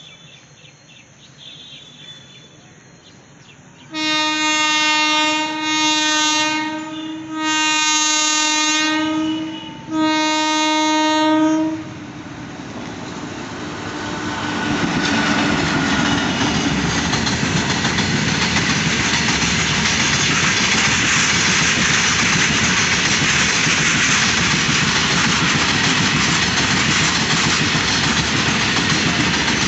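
An Indian Railways electric freight locomotive sounds its horn in several long blasts. Then a long freight train of open wagons rolls past close by, and the rumble and clatter of wheels on rail builds up and holds steady.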